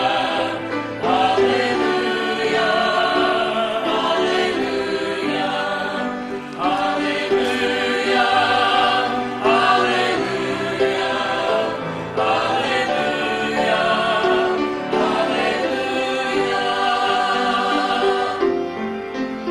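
Mixed church choir of men and women singing a hymn together, in sung phrases a few seconds long with short breaks between them.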